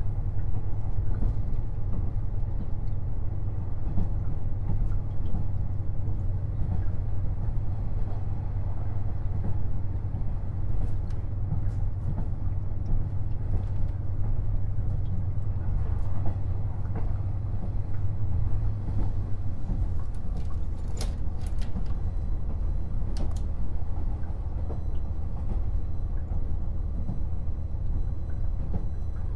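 KiHa 48 500-series diesel railcar under way, with its diesel engine droning steadily beneath the running rumble of wheels on rail. The low drone eases slightly about two-thirds of the way in, and a few sharp clicks come shortly after.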